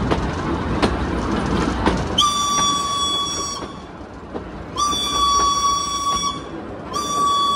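Steam locomotive B 5112's whistle blowing three steady blasts, two of about a second and a half and a third starting near the end. They follow a loud rushing noise with a couple of knocks in the first two seconds.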